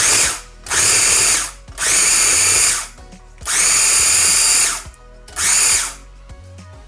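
KitchenAid 3.5-cup electric food chopper run in five short pulses, its motor and blade whirring for about half a second to a second each as it chops shrimp.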